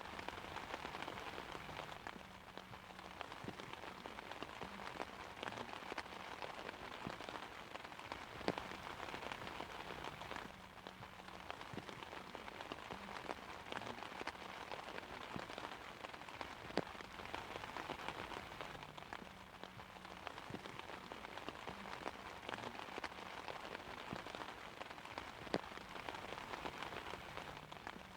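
Steady rain pattering on an umbrella, with frequent sharp drop ticks and a few louder single drops; the shower swells and eases gently.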